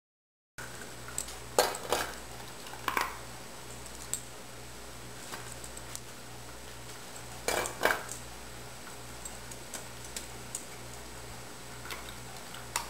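Balls knocking against a metal muffin tin as a dog noses and pushes them around: sharp metallic clanks, two close together about one and a half to two seconds in, another near three seconds, and two more around seven and a half to eight seconds, with lighter taps and rattles between.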